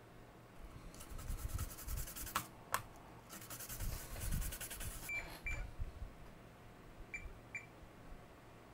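Toothbrush scrubbing the solder side of a circuit board in two spells of quick strokes, with two sharp clicks between them. Then four short high beeps in two pairs, a multimeter's continuity beeper as its probes touch the board.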